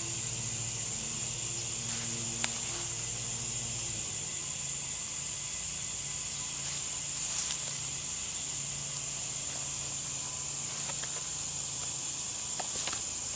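Steady high-pitched insect trill, cricket-like, with a few faint clicks. A low hum runs under it and stops about four seconds in.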